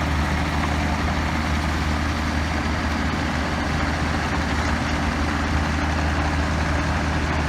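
Takeuchi TB175 midi excavator's diesel engine running steadily at idle.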